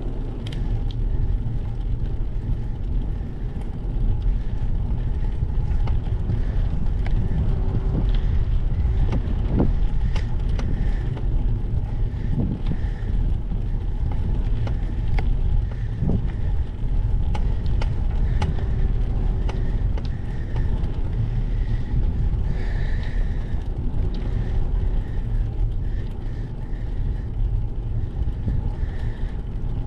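Steady wind and road noise on the microphone of a GoPro mounted on a moving bicycle, with scattered light clicks and rattles.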